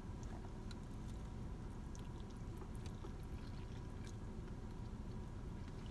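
Quiet eating of spaghetti: soft chewing and mouth sounds with a few small clicks, over a steady low rumble in the car cabin.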